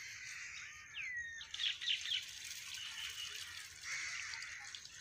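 Birds chirping and calling, with a curving whistle about a second in and a quick run of chirps just after. Beneath them, water splashes and trickles as a bucket is poured into the open end of a water pump's pipe to prime it.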